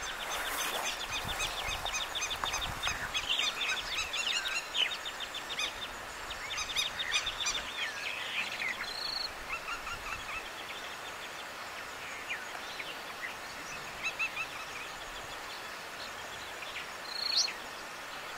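Outdoor field ambience: small birds chirping and trilling repeatedly over a steady background hiss, busiest in the first half, with one louder rising call near the end.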